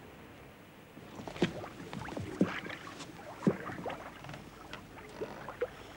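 Creaks and soft splashes of a ship's boat being worked on the water, coming about once a second.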